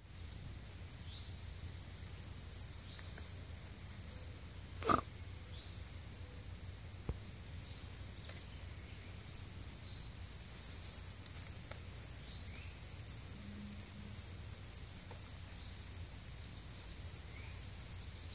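Steady high-pitched insect drone, with short rising chirps every second or two. A single short, sharp sound about five seconds in is the loudest thing.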